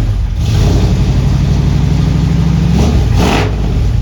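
1979 Ford F-100's carbureted engine running cold with a low growl, held at raised revs for a couple of seconds and dropping back about three seconds in. A short hiss comes near the end.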